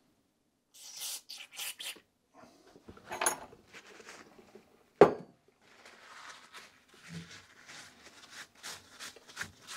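Paper towel rubbing and wiping grease off a disc brake caliper clamped in a bench vice, in short irregular strokes, with one sharp knock about five seconds in.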